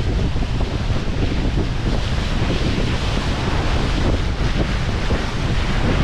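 Wind buffeting the microphone over the steady rush of seawater along a ship's bow.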